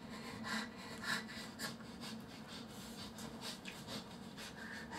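Faint rustling and breathing from a person moving about, in short irregular scrapes, over a low steady hum.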